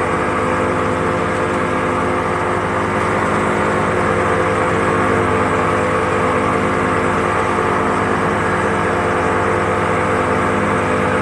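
Motorboat's outboard engine running steadily at speed, a constant drone, mixed with the rushing of water in its wake.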